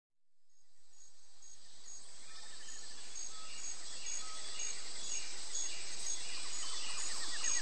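Outdoor nature ambience with high chirps repeating evenly over a steady hiss, fading in from silence over the first second.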